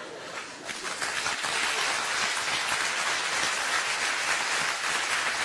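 Audience applauding after a joke: dense, even clapping that swells in the first second and holds steady.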